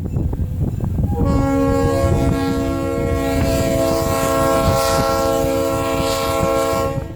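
Locomotive air horn sounding one long blast of about six seconds, several notes at once as a chord, starting about a second in and cutting off near the end, over a low rumble.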